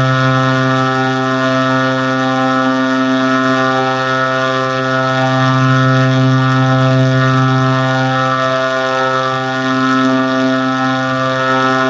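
A processed sound effect: one steady, low, buzzy tone with many overtones, held at a single pitch with slight wavering.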